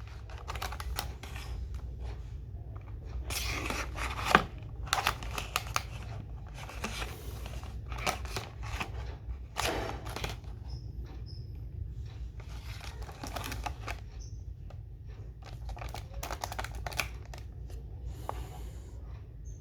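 Hands handling and opening the cardboard and plastic packaging of a 1/64 diecast model car: irregular clicks, taps and short rustling and tearing sounds, with one sharp click about four seconds in, over a steady low hum.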